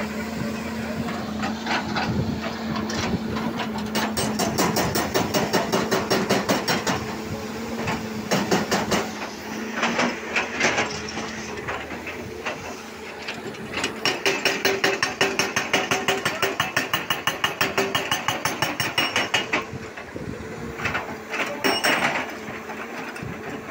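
Hydraulic rock breaker on a Volvo excavator hammering rock in rapid bursts of several seconds each, with pauses between bursts. Under it the excavator's engine runs with a steady hum.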